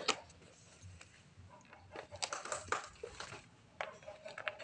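Handling noise from a cardboard box and whole durians being moved on a tile floor: scattered crackles and knocks, coming more often in the second half.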